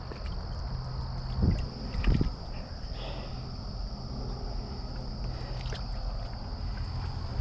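Water sloshing and splashing as someone moves through shallow water, with two heavier splashes about one and a half and two seconds in. A steady high insect trill runs underneath.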